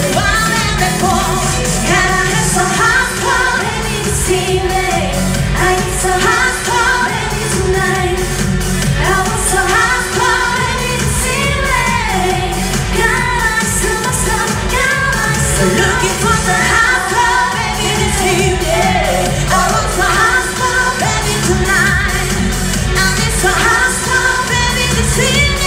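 Pop song performed live: sung vocals over a steady dance beat and bass.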